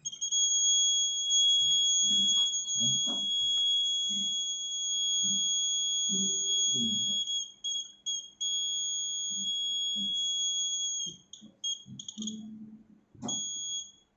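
Electronic buzzer of a laser-tripwire alarm circuit sounding a steady high-pitched tone, triggered because the laser beam to its light sensor is blocked. About eleven seconds in it starts cutting in and out in short bursts, then sounds once more briefly near the end, with faint low knocks underneath.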